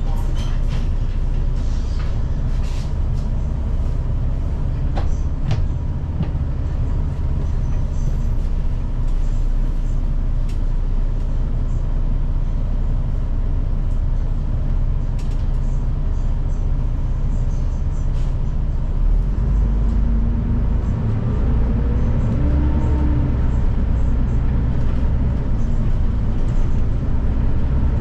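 Inside a moving city bus: a steady low rumble of engine and road noise with scattered small rattles. About two-thirds through, the rumble grows heavier and a faint rising whine comes in as the bus picks up speed.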